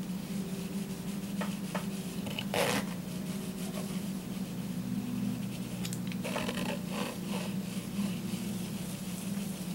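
Palette knife spreading and scraping oil paint across a canvas, in irregular scratchy strokes, the strongest about two and a half seconds in and a run of them near the end, over a steady low hum.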